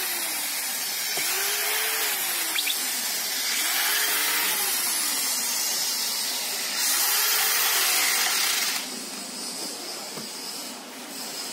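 Electric drill-driver running screws into the housing of a demolition hammer. The motor whines in one long run whose pitch rises and falls about four times as the screws are driven and seat, and it stops about nine seconds in.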